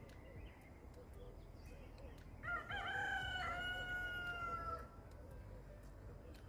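A rooster crows once, about two and a half seconds in: a long call of roughly two seconds that wavers at its start and then holds a drawn-out, slightly falling note.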